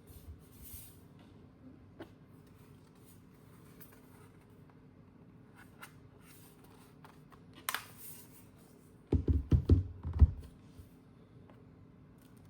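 Handling sounds while unboxing a laptop: scattered light clicks and taps, a sharper click near the middle, then a quick run of several low thuds about nine seconds in.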